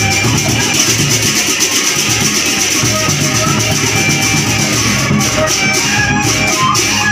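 Live Javanese gamelan ensemble playing, with drums and a bamboo flute (suling) melody over held tones. About five seconds in, sharp strikes join at a quick beat.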